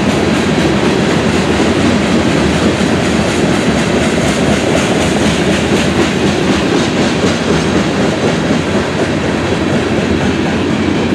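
A freight train's covered hopper cars rolling past, their steel wheels rumbling steadily and clacking over the rail joints.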